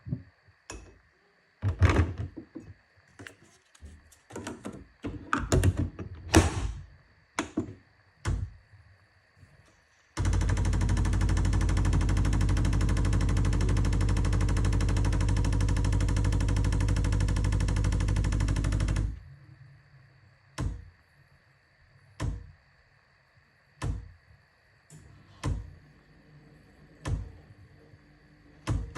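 Bosch Tassimo coffee machine in use: a string of clicks and knocks, then about nine seconds of a steady, loud mechanical buzz, then single sharp clicks about every second and a half.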